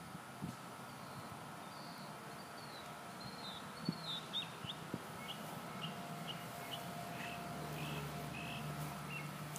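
A bird giving a series of short, high chirps, the first few sweeping down in pitch and the later ones clipped, about two a second. A few faint taps and a low hum join in past the middle.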